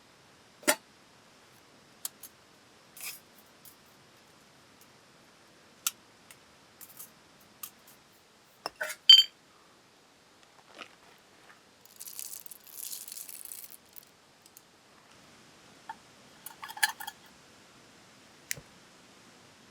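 Small objects being handled: scattered light clicks and knocks, a sharp clink about nine seconds in that rings briefly, a couple of seconds of high rustling hiss around twelve seconds in, and another short clatter near seventeen seconds.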